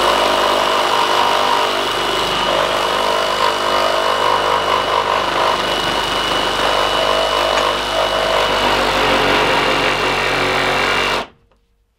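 Ridgid 18-volt Octane cordless reciprocating saw running at full speed, its 6-inch wood-cutting blade sawing through a solid 4x4 post, with a steady high whine from the motor. The saw stops suddenly about eleven seconds in, partway through the cut.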